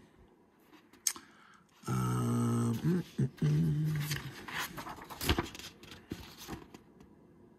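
A man's voice holding a short, steady hum twice, then paper rustling and a few sharp snaps as rulebook pages are turned.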